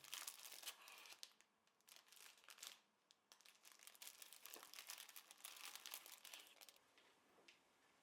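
Packaging being crinkled and handled in three stretches of quick, rustling crackles, with a faint tick near the end.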